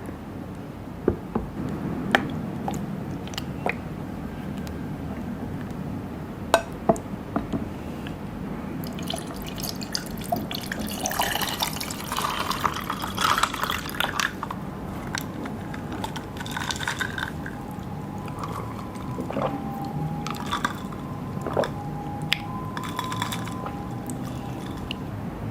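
Liquid being poured and sloshed, with drips and scattered light clicks and taps of dishes and utensils.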